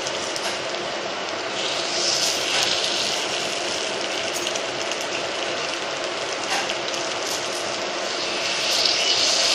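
Rava appe batter sizzling in ghee in a cast-iron appe pan, a steady frying crackle, with occasional light taps of a spoon against the pan.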